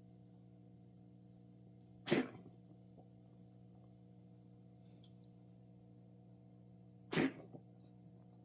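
Domestic cat coughing: two short, sharp coughs about five seconds apart, the first about two seconds in and the second near the end.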